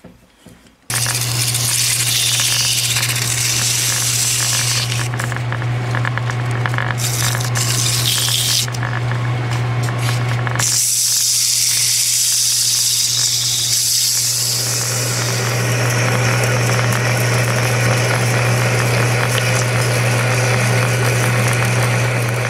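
Metal lathe running with a steady hum while abrasive is held against the spinning metal pulley, a hissing scrape of sanding over the motor sound. It starts abruptly about a second in, and the hiss eases and swells again midway.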